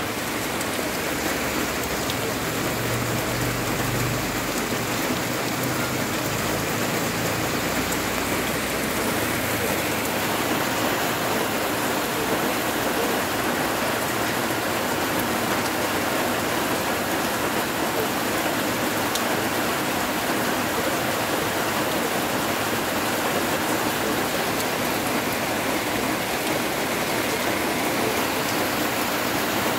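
Heavy, steady rain pouring down onto waterlogged ground and fields: the first rain bands of an approaching typhoon.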